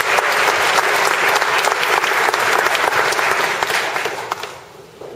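Applause from an audience, many hands clapping, fading out about four seconds in.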